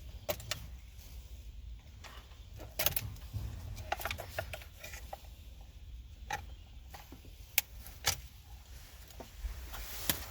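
Scattered sharp clicks and light knocks of hand work on the car's interior trim and window hardware, over a steady low hum.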